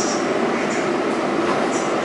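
Inside an R188 subway car standing at the platform with its doors closed: a steady rumble and hum from the car, with a few short, faint hisses.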